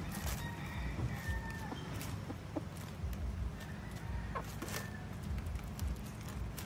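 Chickens clucking softly while a rooster and hen peck among dry leaves, with scattered small clicks and rustles over a steady low rumble.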